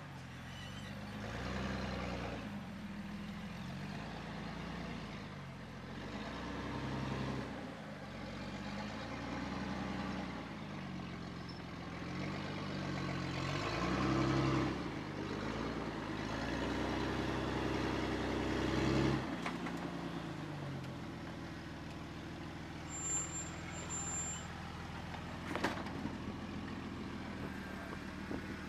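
Jeep TJ engine revving up and down again and again as it crawls over rock ledges, the pitch rising and falling every second or two. About 19 seconds in it settles to a lower, steadier running, with one sharp knock near the end.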